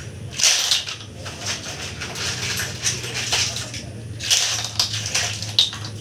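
Cooked clam and cockle shells clattering and scraping against each other as they are handled by the handful in a basin, in irregular bursts, over a steady low hum.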